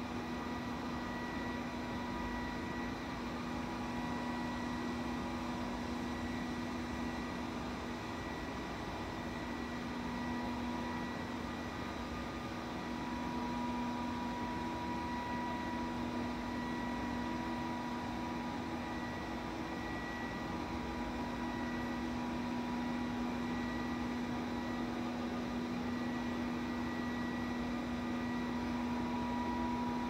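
Robot vacuum cleaner running: a steady whir of its suction fan and brush motors, with a steady low hum under it.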